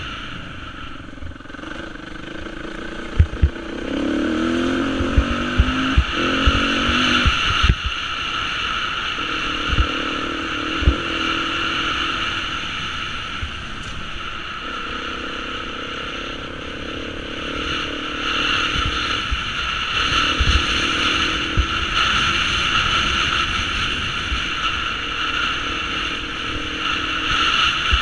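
Beta 350 dirt bike's engine running under load, its revs rising and falling as it is ridden over rough dirt track. Sharp knocks come through several times, mostly in the first half and again about two-thirds of the way in.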